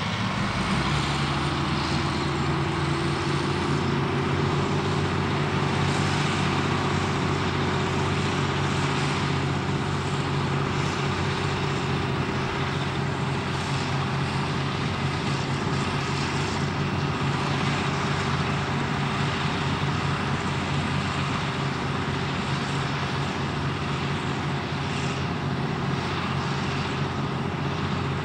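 Caterpillar 637 twin-engine scraper's diesel engines working hard in the cut: a steady deep engine drone that swells up in the first second or two and then holds.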